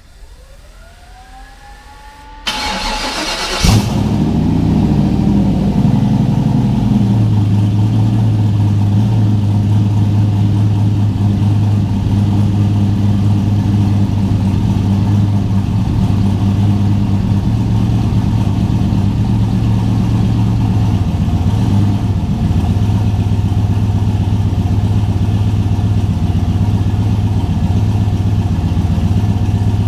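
Turbocharged 6.0-litre V8 cranked over by the starter, catching about four seconds in, then idling steadily.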